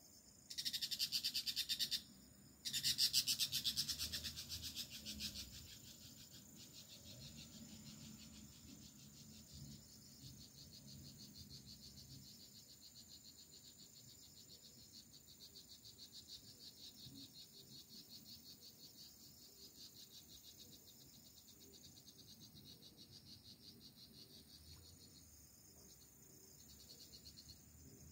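Insects calling from the foliage: a loud, fast-pulsed, high buzz starts about half a second in, breaks off for a moment near two seconds, resumes and fades out by about five seconds, leaving a quieter, steady pulsing chorus.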